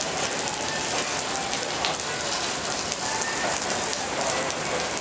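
Heavy rain falling steadily close to the microphone, a dense hiss broken by many sharp individual drop hits. Under it, faintly, the cars of a freight train roll past.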